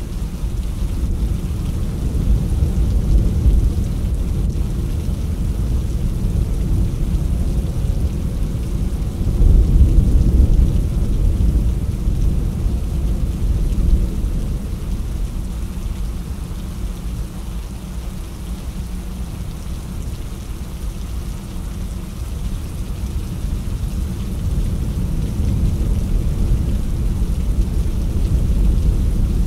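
Rainstorm: rain with a continuous deep rumble, swelling louder about ten seconds in.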